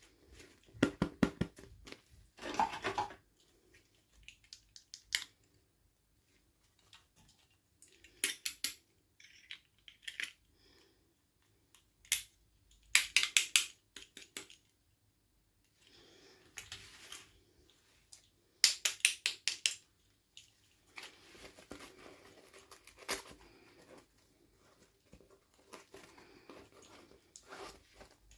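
Unboxing handling sounds: short bursts of rapid clicks and crinkles as toy packaging is opened and handled, separated by pauses, with softer rustling in the last several seconds.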